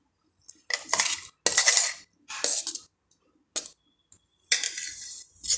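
Steel utensils scraping and clinking as chopped muskmelon is pushed off a steel plate into a steel pan of thickened milk, in a series of short scrapes.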